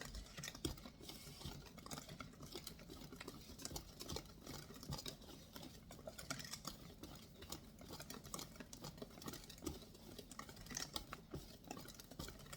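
Utensil stirring cake batter by hand in a mixing bowl: faint, irregular tapping and scraping against the bowl.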